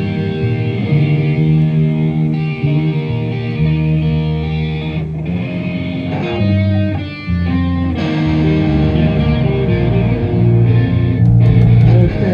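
A live band playing an instrumental passage with guitar out front and a steady bass line underneath, run through the PA during a sound check.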